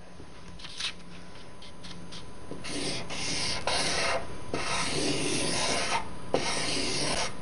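Pen scratching across paper as a circle is drawn around a triangle: a few faint ticks, then from about the middle several long rasping strokes with short breaks between them.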